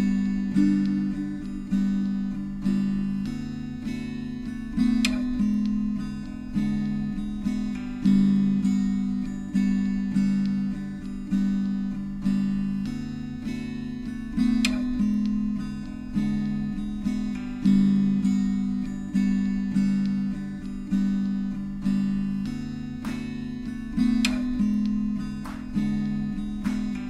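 Background music: a gentle acoustic guitar plucking chords in a steady, even rhythm.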